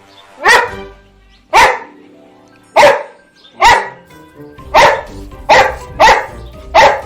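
A dog barking: eight loud, short barks, spaced about a second apart at first and coming faster, roughly every half second, in the second half.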